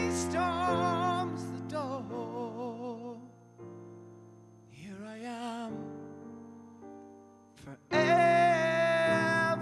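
Instrumental passage of a slow ballad: piano chords under a sustained melody line with vibrato. It thins to quiet held notes in the middle, then the full ensemble comes back in loudly near the end.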